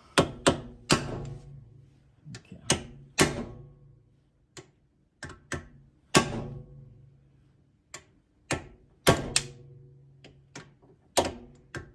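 Hammer blows driving a new axle seal into a Mustang rear axle housing until it seats past flush. There are about a dozen sharp metal strikes at uneven intervals, each ringing briefly.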